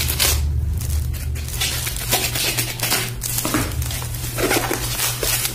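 Scissors cutting open a cardboard box, the cardboard scraping and rustling in repeated short bursts over a low steady hum.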